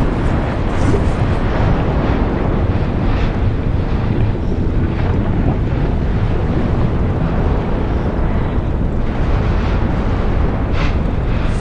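Steady, loud low rumble of a volcanic eruption, mixed with wind noise on the microphone.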